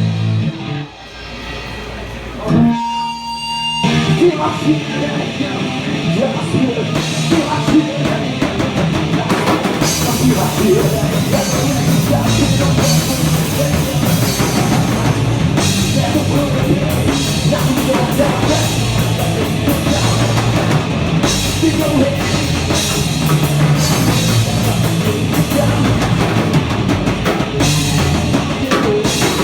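Rock band playing loud with drums and electric guitar. A short held tone comes first, and the full band comes in about four seconds in.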